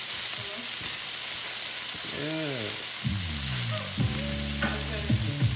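Cherry tomatoes sizzling steadily in a hot cast-iron grill pan, with a few sharp clicks near the end as silicone tongs knock against the pan while they are turned.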